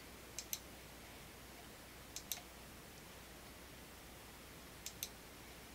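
Computer mouse clicking: three pairs of quick, sharp clicks spread over a few seconds of near quiet, with a faint low hum underneath.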